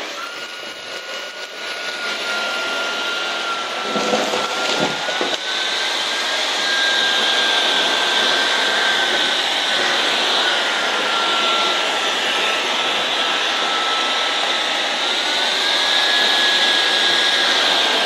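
Shark Detect Pro IW3611 cordless stick vacuum starting up and running. Its motor whine shifts up and down in pitch a few times over a steady rushing hiss, and it grows louder over the first few seconds.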